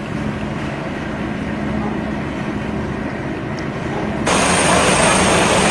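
A steady low engine-like rumble with a faint hum, then an abrupt cut about four seconds in to louder, hissier road noise of a vehicle driving past.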